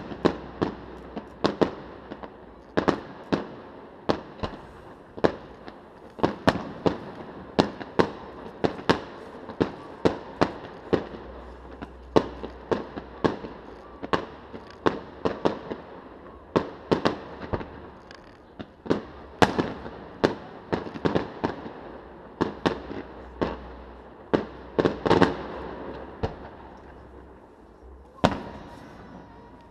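Aerial firework shells bursting in quick succession, about one or two sharp bangs a second, each trailing off in an echo.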